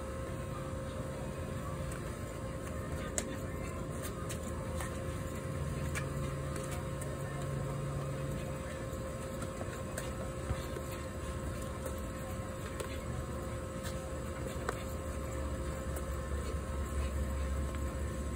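A steady mechanical hum holding a few fixed tones, with a few faint clicks and a low rumble that swells near the end.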